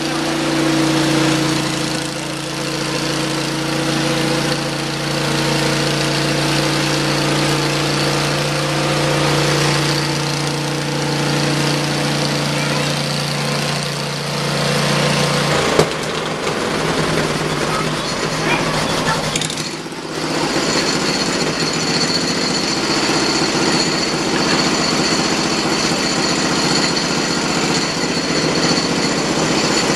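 Hud-Son Oscar 36 portable bandsaw sawmill running steadily, its engine hum over a noisy mechanical rush. About halfway through there is a sharp knock and the sound changes. After a brief dip near two-thirds of the way, the mill runs on at a different pitch with a high whine.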